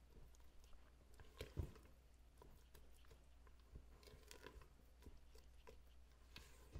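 Faint, irregular squishing of thick cake batter with apple pie filling being folded by a silicone spatula in a stainless steel mixing bowl, with light scrapes and a soft knock of the spatula against the bowl about a second and a half in.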